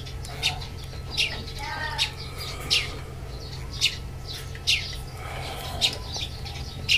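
A bird chirping over and over: short, sharp, high chirps that fall in pitch, about one a second, over a low steady hum.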